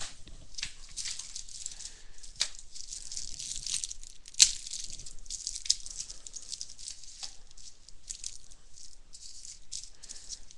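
Plastic and cardboard packaging of a Topps value box of baseball cards crinkling and rustling as it is torn open and unwrapped by hand. A few sharp snaps break through, the loudest about four and a half seconds in.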